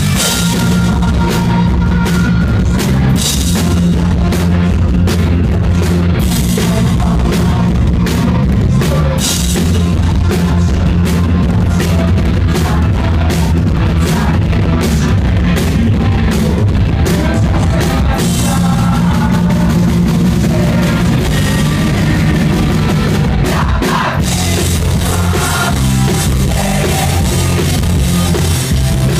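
Rock band playing live and loud: electric guitars over a pounding drum kit.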